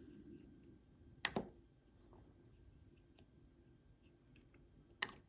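Faint scratching and light ticks of a small paint brush working wash into a tiny plastic scale model boat, with a sharp double tap about a second in and another tap near the end.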